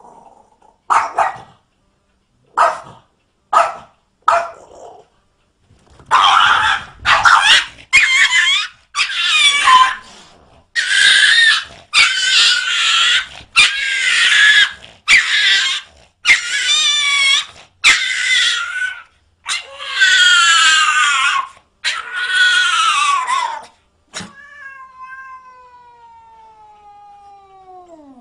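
Pet dog and cat calls: a few short yips at first, then a long series of loud drawn-out yowls and howls that waver in pitch. Near the end comes one long, quieter call that slides steadily down.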